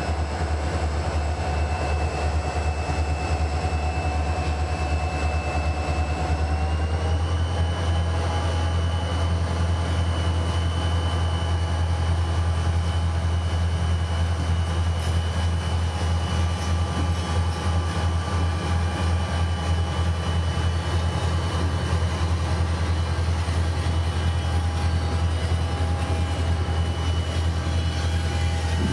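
Diesel-electric freight locomotive running, a steady low drone with a high whine over it; about seven seconds in, its pitch steps up a little.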